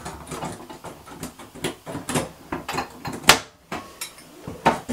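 Shades and brass parts of a light fixture clinking and knocking as they are pulled off by hand: a string of short clicks, the sharpest about three seconds in.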